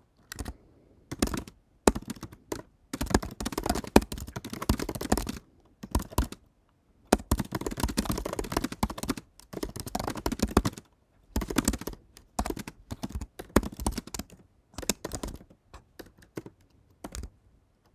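Typing on a computer keyboard: runs of quick keystrokes broken by short pauses.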